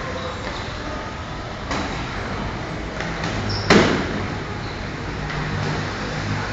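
Gloved punches landing during boxing sparring: two sharp thuds over a steady background noise, the louder one a little before four seconds in.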